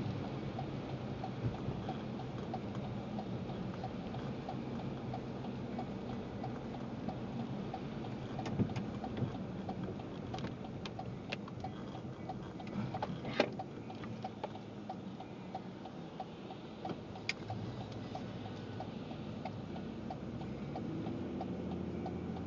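Road and engine noise inside a moving car's cabin in the rain, with a steady ticking about twice a second and a few sharper clicks.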